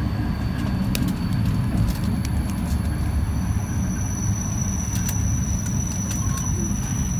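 Cabin noise of an ET2 electric multiple unit on the move: a steady low rumble of wheels and running gear, with a few sharp clicks. A thin, steady high whistle comes in about three seconds in.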